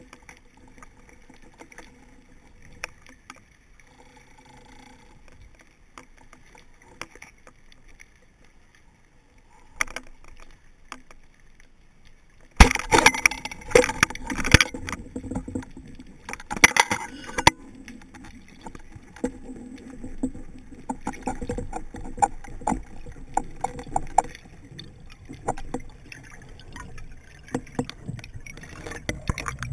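Underwater sound of a spearfisher's speargun: faint water noise and scattered clicks, then about halfway through a sudden loud bang as the gun fires, followed by several seconds of heavy clattering. After that, steady gurgling and rustling clicks continue as the shaft line is handled.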